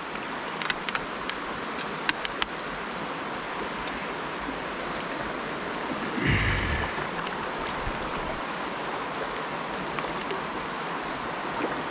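Shallow mountain-stream riffle rushing steadily. A few faint ticks in the first couple of seconds and a short low bump about six seconds in.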